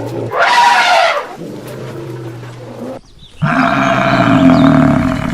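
Animal calls: one loud call about half a second in, then a longer steady call from about three and a half seconds in.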